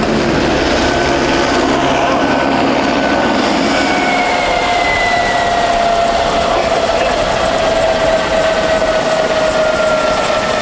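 Helicopter flying low overhead: a loud, steady rotor and turbine noise whose whine falls slowly in pitch from about four seconds in as it passes.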